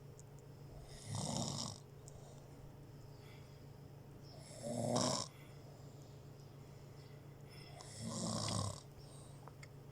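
Snoring: three snores in a slow, even rhythm, each under a second long and about three and a half seconds apart, over a steady low hum.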